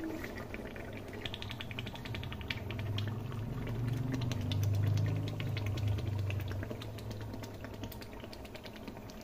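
Chicken korma frying in hot oil in a large pot, sizzling with rapid crackling pops over a low steady hum that swells midway.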